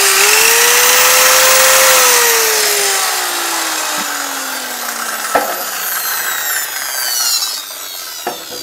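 Corded circular saw motor running free at full speed, drawing about 650 to 700 watts from a portable power station. About two seconds in the trigger is let go and the blade winds down, its whine falling steadily in pitch and fading, with a few light clicks near the end.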